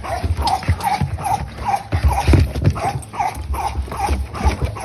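Pit bull puppies scuffling on a wooden deck, one giving a run of short high whimpering yelps about two or three times a second, over dull thumps of bodies and paws on the boards.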